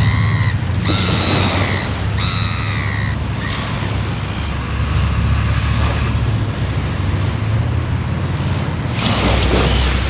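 Red-billed gulls calling: three loud, drawn-out harsh calls in the first three seconds, then a few fainter ones, over a steady low rumble.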